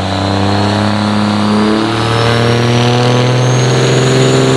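Dodge Ram Cummins turbo-diesel pickups held at the drag-strip start line, building boost before launch. The deep engine note steps up in pitch about two seconds in and keeps climbing, under a high turbo whine that rises steadily in pitch.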